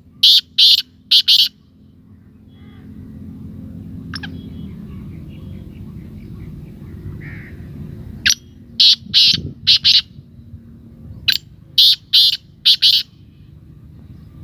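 Black francolin calling three times, each call a rapid series of about five harsh, grating notes lasting about a second and a half. The calls come near the start, about eight seconds in and about eleven seconds in.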